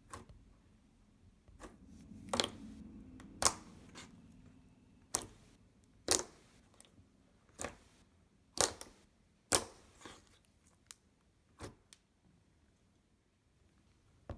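Slime being squeezed and poked by hand, giving about a dozen sharp, irregular pops and clicks that stop about twelve seconds in.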